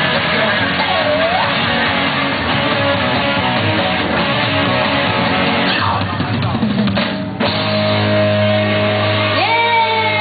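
Children's taiko drumming with loud rock-style backing music. About seven seconds in, the music changes abruptly to held notes, and near the end the young drummers shout as they finish.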